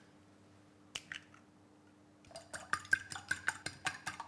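Eggs being beaten with a fork in a glass bowl: a fast, even ticking of the fork against the glass, about six strokes a second, starting a little over two seconds in. Before it there is a single soft knock about a second in.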